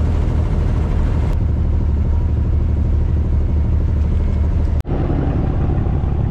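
Wooden abra water taxi's diesel engine running steadily with a loud low drone, heard from aboard. The sound cuts out for an instant near the end and resumes slightly changed.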